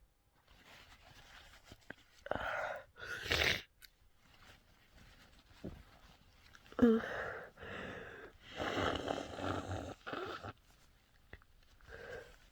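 A person with a head cold sneezing and blowing her nose: short sharp breaths, then a loud sudden sneeze about seven seconds in, followed by a long blow of about two seconds.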